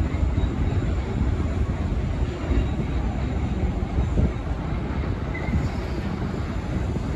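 New York City subway train on the L line approaching along the track, its wheels on the rails making a steady low rumble.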